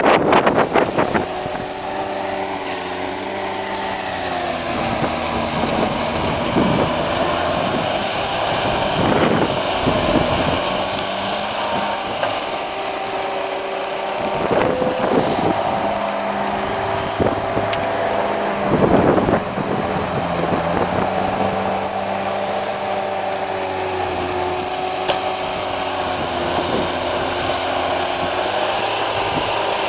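Cat 247B compact track loader's diesel engine running while it plows snow, its pitch rising and falling as the engine speed changes. There are a few brief louder rushes of noise.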